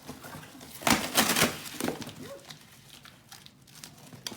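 Packaging being handled and torn open, with a loud burst of crinkling and rustling about a second in, then lighter rustles.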